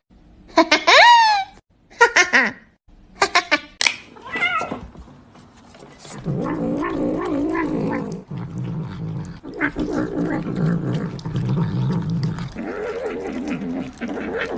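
Cat calling: a few short meows in the first seconds, then a long, low, wavering yowl from about six seconds in.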